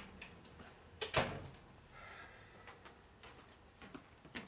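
A single knock about a second in, then a few faint light clicks.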